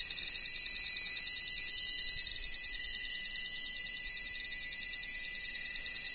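Voltage tester pen giving a fast clicking beep as it picks up the field of a spark-gap coil, over a steady high-pitched whine.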